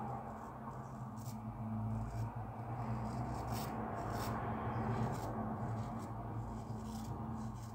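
Shavette razor with a Gillette Super Stainless blade scraping through a week's beard stubble under lather, in a series of short strokes.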